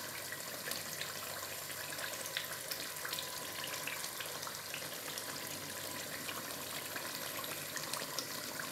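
Pot of tomato stew simmering on the stove: a steady hiss with scattered small pops of bubbles breaking at the surface.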